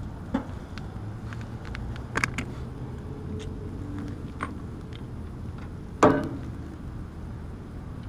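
Hand work on an air-conditioner condenser's sheet-metal cabinet: several sharp knocks and clicks, the loudest about six seconds in, over a steady low hum.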